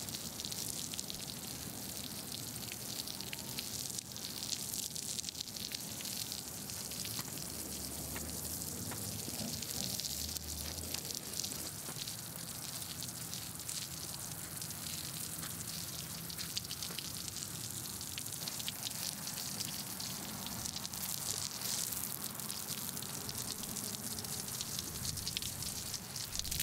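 Water from a garden hose spraying onto a dry dirt lot: a steady hiss with the patter of many drops hitting the ground.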